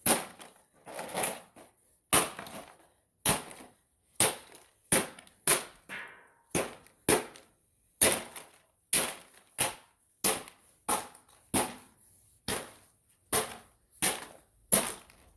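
Repeated heavy blows smashing an all-plastic Mr. Coffee drip coffee maker: about twenty sharp cracking strikes, a little more than one a second, as the plastic housing breaks apart.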